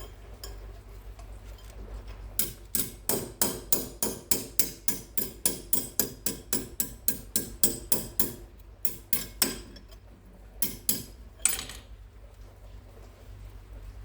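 Repaired spool turning with a steady mechanical clicking, about four sharp clicks a second for several seconds, then stopping, followed by a few separate clicks.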